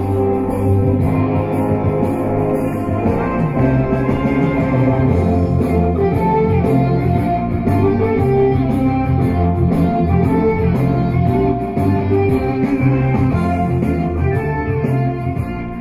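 Guitar-led music with a steady drum beat.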